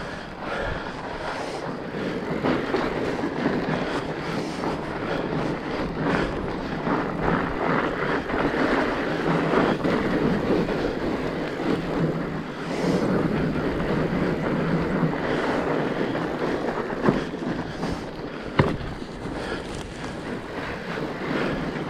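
Fat bike being ridden along a forest trail: steady rolling tyre noise and rattling of the bike, with two sharp knocks near the end.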